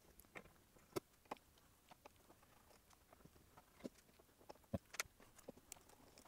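Faint, scattered clicks and taps of a small screwdriver on the screws and circuit board of a hard drive's controller board as it is unscrewed and handled, a few sharper clicks about a second in and again around four to five seconds in.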